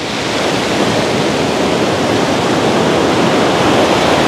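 Rough, storm-driven sea surf breaking and washing on the shore: a loud, steady rush that slowly swells and peaks near the end.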